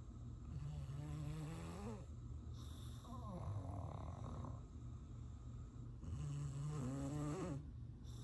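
English bulldog snoring in its sleep: three long, pitched snores a few seconds apart, each rising in pitch at its end, over a steady low rumble.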